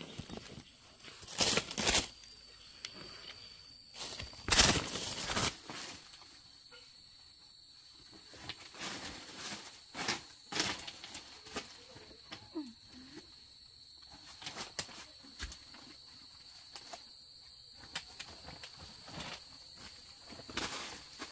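Rustling and crunching noises, two loud ones about one and a half and four and a half seconds in, then scattered smaller crackles, over a faint steady high-pitched tone.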